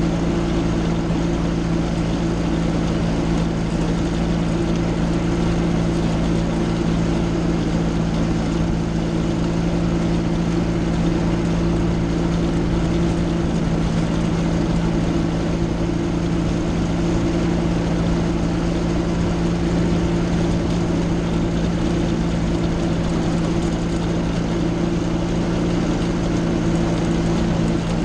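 Aerolite 103 ultralight's engine and pusher propeller running at a steady taxi power, an even, unchanging drone.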